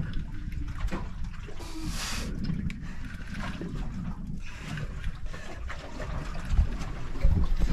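Water sloshing and trickling around a small boat at sea, over a steady low rumble.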